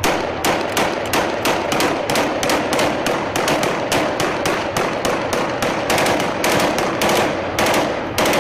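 Assault rifle gunfire: sharp shots fired in quick, slightly uneven succession, about three or four a second, without a pause.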